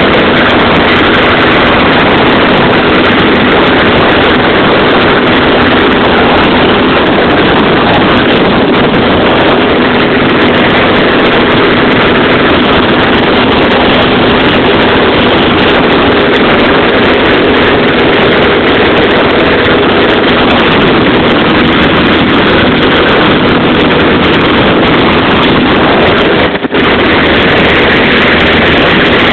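Cockpit noise of a single-engine light aircraft in cruise flight: the propeller engine runs steadily and loud, with wind rush over the cabin. The sound drops out for an instant about 27 seconds in.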